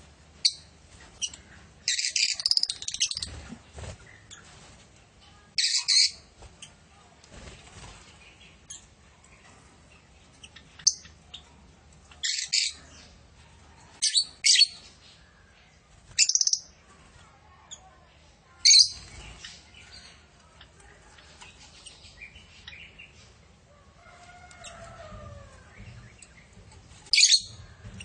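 A flock of lovebirds calling: sharp, shrill chirps in short loud bursts every few seconds, with quieter twittering in between.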